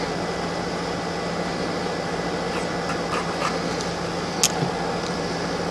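Steady background hum, with a few faint light clicks and one sharper click about four and a half seconds in.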